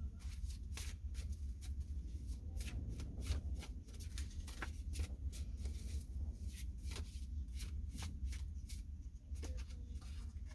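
A deck of tarot or oracle cards being shuffled by hand: a run of quick, uneven card flicks and riffles, over a low steady hum.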